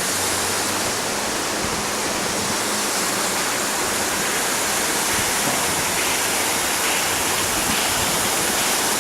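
Steady rush of a large waterfall, the Higashi-Shiiya Falls, its water plunging and crashing without a break.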